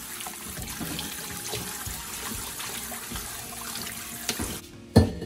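Kitchen tap running into a stainless steel bowl as raw chicken pieces are washed by hand in the sink. The running water stops a little before the end, followed by a single loud knock.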